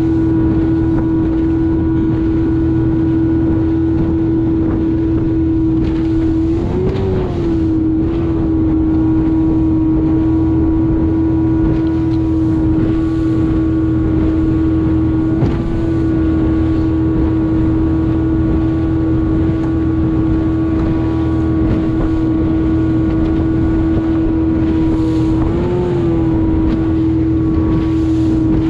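Small boat's motor running steadily under way, one constant engine tone that rises briefly in pitch twice, about a quarter of the way in and near the end.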